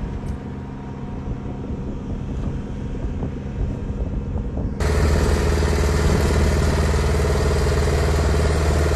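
Engine running steadily with a low hum. About halfway through it jumps abruptly to a louder, hissier engine noise that then holds steady.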